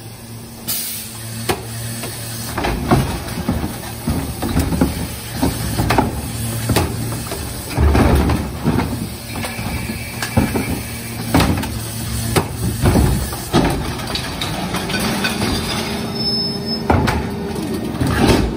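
A New Way rear-loader recycling truck's engine running steadily while recycling carts are tipped into its hopper by the cart tipper, with repeated bangs of the carts and clatter of recyclables and cardboard dropping into the hopper.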